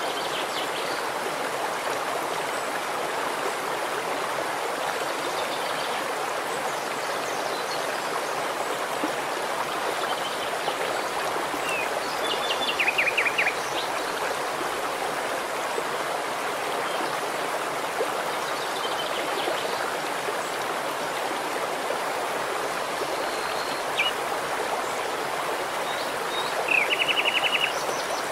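Shallow stream running over rocks, a steady even rushing of water. A small bird sings a short rapid trill twice, about halfway through and again near the end, with a few faint chirps between.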